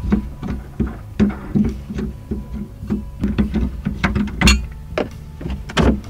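Temporary spare tire being worked loose and lifted out of the cargo-floor well of a 2015 Toyota RAV4: a run of short knocks and scuffs, the loudest a sharp knock about four and a half seconds in.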